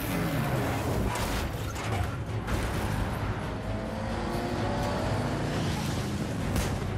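Car-chase film sound mix: car engines running under a steady low rumble, with sharp crash hits about a second in and again about two and a half seconds in, where a car has flipped onto its roof. Dramatic music plays underneath.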